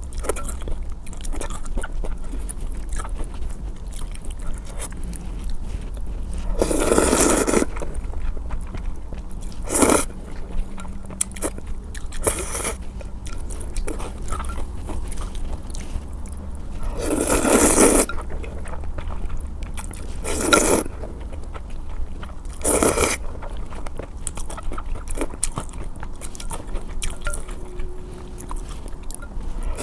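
Close-up eating of hot and sour noodles: about six loud slurps of noodles, each lasting up to a second or so, with chewing and small wet clicks between them.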